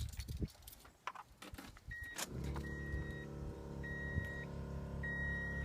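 Keys clicking in the ignition, then about two seconds in a Kleinn train-horn air compressor starts and runs steadily, pumping up the horn's air tank. Over it the truck's warning chime beeps repeatedly, about once a second.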